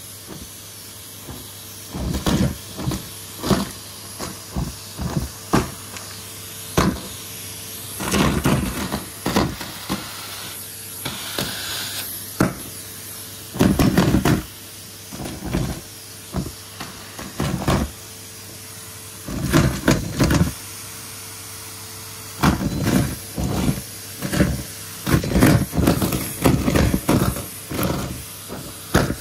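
Vacuum cleaner running steadily while balloons and fluff are sucked up, with frequent short, loud bursts of noise at irregular intervals over the motor's steady hum.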